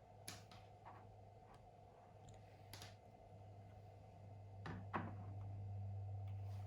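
Faint scattered clicks and knocks from a mechanical keyboard being handled, the loudest a double knock about five seconds in, over a low steady hum.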